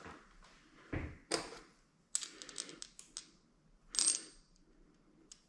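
Small metal toilet-tank hardware (bolts, nuts and washers) clinking as it is handled: several separate clinks and light rattles, one ringing briefly about four seconds in.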